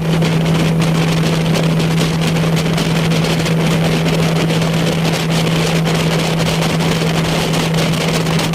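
Motorboat engine running steadily with a constant hum, with wind buffeting the microphone.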